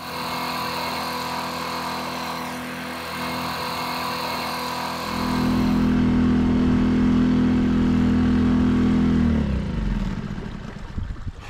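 Small gasoline outboard motor running steadily, louder about halfway through, then slowing and dying out about nine seconds in. It has run out of fuel because the fuel shut-off switch was left closed.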